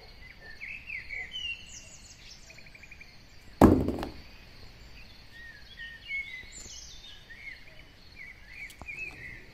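A single hollow thud as a toy dinosaur is dropped into a cardboard box, about three and a half seconds in. Birds chirp faintly in the background.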